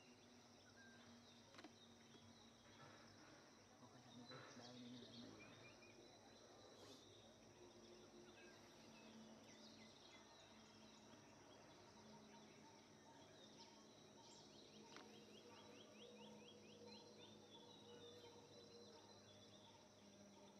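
Near silence: faint outdoor ambience with a steady high insect hum and a few scattered faint chirps and clicks, including a quick run of ticks a few seconds before the end.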